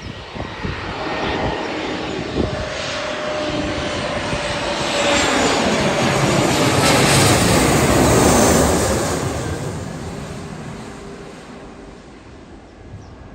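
Airliner flying low overhead. Its engine roar builds steadily, peaks about seven to eight seconds in, then fades away as it passes.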